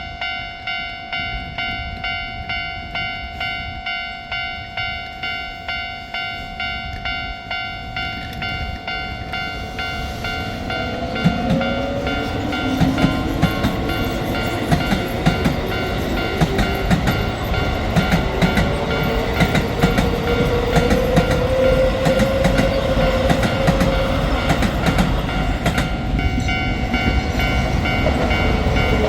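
Japanese level-crossing warning bell ringing in a steady, even rhythm. From about ten seconds in, a Keio Line electric train comes through, wheels clacking over the rail joints with a motor whine that glides in pitch, as the bell keeps ringing.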